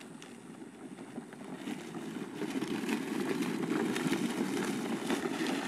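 Wheels of a three-wheeled drift trike rolling and skidding over a sandy dirt road: a rough, gritty rumble with scattered small clicks of grit. It grows louder over the first few seconds as the trike comes nearer.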